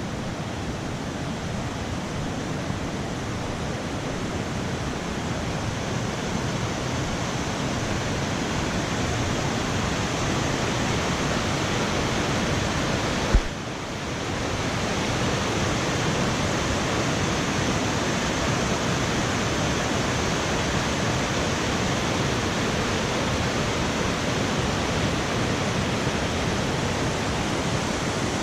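Bousra Waterfall's water falling, a steady rushing sound. About halfway through there is a single sharp click with a brief drop in level.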